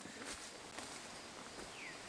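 Faint forest ambience with a few light ticks and rustles, and one brief falling chirp near the end.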